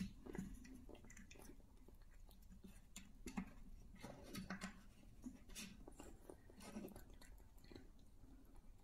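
Faint, irregular clicks and scrapes of the wooden sliders and lids on a cat's puzzle feeder as a cat paws and noses at them.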